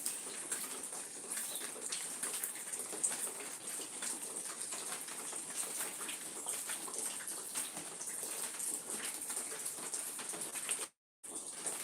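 Outdoor nature ambience: small birds chirping over a steady high-pitched hiss, with many light ticks throughout. The sound cuts out completely for a moment near the end.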